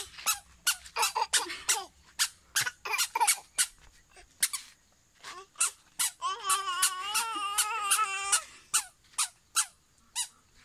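Toddler's squeaker shoes chirping with each step as the child walks, short squeaks about two or three a second, with a longer wavering squeal about six seconds in.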